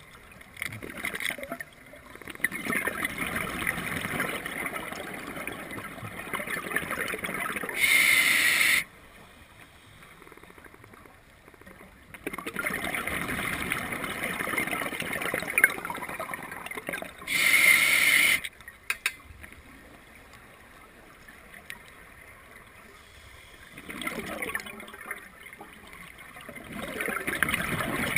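Scuba diver breathing through a regulator underwater, heard close by: long bubbly exhalations alternate with short, loud inhalation hisses, twice, with quieter pauses between.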